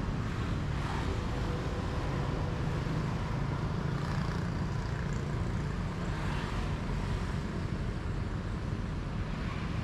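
A steady low vehicle rumble with no sudden events.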